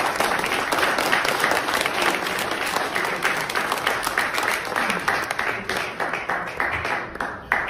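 Audience applauding, with many hands clapping at once; the clapping thins out and fades near the end.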